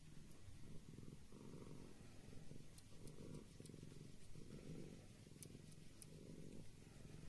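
A cat purring softly, the low rumble swelling and fading with each breath.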